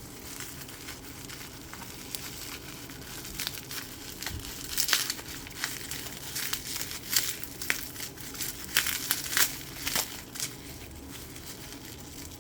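Bubble wrap being crinkled and pulled apart by hand to unwrap a small ceramic figurine: a run of crackling and crinkling that gets busier and louder in the middle and eases near the end.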